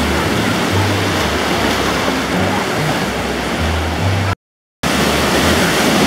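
Ocean surf on a sandy beach: waves breaking and washing up the shore in a steady, loud rush of water. The sound cuts out completely for about half a second a little past four seconds in.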